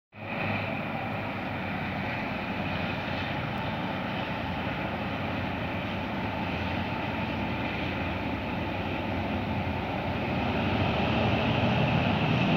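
Distant TCDD DE 22000-class diesel-electric locomotives hauling a freight train, their engine drone a steady hum that grows louder and deeper in the last couple of seconds as the train approaches.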